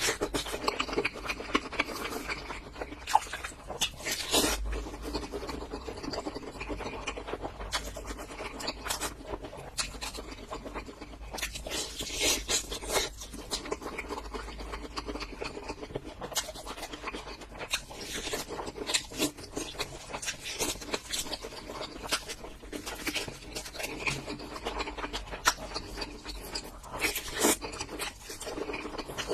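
Close-miked eating: chewing and crunching of food, with irregular crisp crackles and wet mouth sounds throughout.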